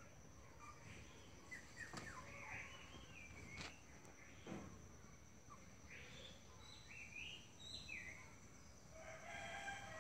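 Faint rooster crowing in the distance, with a few small bird chirps.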